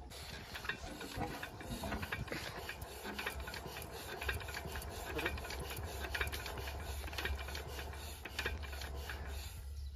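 Stationary single-cylinder diesel engine of an irrigation water pump, knocking rhythmically about three times a second over a steady low hum.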